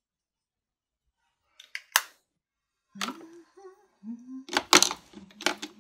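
A few sharp clicks about two seconds in, then a woman's voice making short murmured sounds with no clear words.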